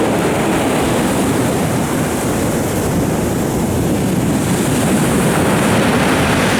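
Storm surf pounding a sea beach, a loud continuous rush of breaking waves, with strong wind buffeting the microphone.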